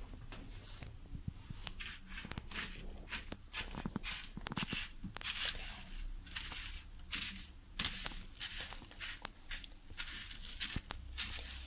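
Crushed Doritos crunching and crackling as an egg-coated rolled tortilla is pressed and turned in them on a plate: a run of irregular short crackles.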